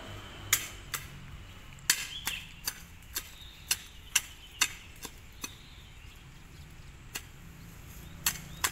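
Small curved hand sickle chopping into weeds and soil, about a dozen sharp irregular knocks. They pause for about two seconds past the middle, then start again near the end.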